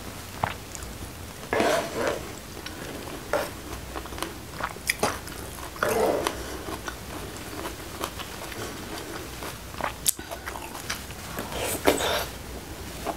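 Close-miked mukbang eating sounds: wet chewing of rice and mushrooms in chilli sauce, with irregular clicks and scrapes of a metal spoon on the tray.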